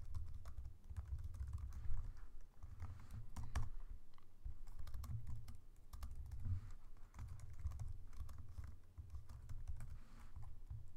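Typing on a computer keyboard: a quick, irregular run of key clicks with dull thuds from the keystrokes.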